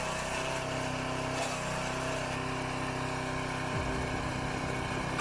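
Small gasoline engine of a 6-horsepower garden branch shredder running at a steady speed.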